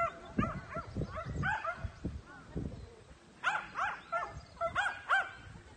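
A dog barking repeatedly in short, high yaps: a quick run of barks, a pause of about a second and a half, then another run.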